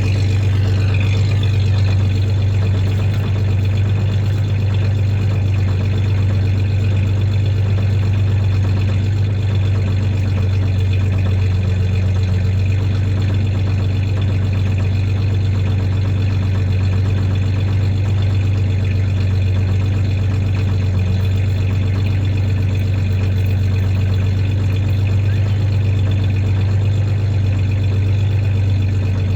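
1993 Ford Ranger's 3.0 V6 idling steadily with a slight misfire, which the owner confirms.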